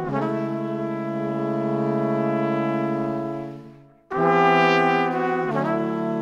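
Background music of brass instruments holding long chords. The chord fades away a little before halfway, and a new one comes in sharply about four seconds in.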